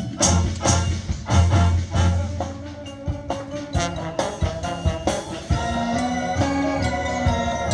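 High school marching band playing: sharp accented hits with heavy low brass and drums over the first few seconds, then the horns hold sustained chords from about halfway.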